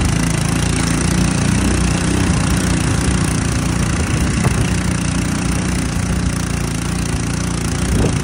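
Small kart engines running steadily under load as two hitched karts pull against each other.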